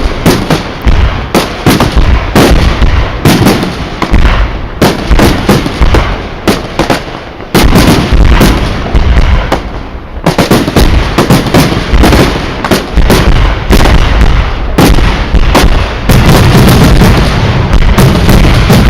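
Aerial fireworks display: dense, rapid volleys of loud bangs and booming shell bursts, overlapping into a near-continuous barrage with deep rumbling echoes.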